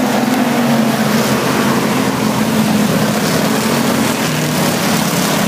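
Several dirt-track stock car engines running together in a steady, loud drone as a pack of cars circles the oval.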